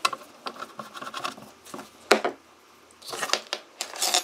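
Handling sounds of a sheet-metal ECU case as its cover is fitted: light clicks, taps and rubbing, with one sharper knock about two seconds in and scraping near the end.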